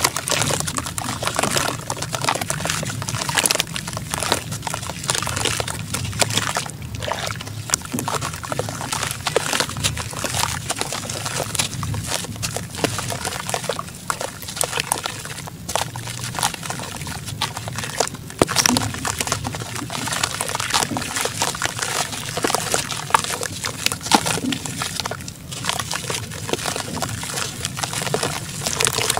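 Hands squeezing and crumbling wet sand-cement lumps in a plastic basin of water: continuous sloshing and squelching, thick with small crackles, as handfuls break apart and drop back into the water.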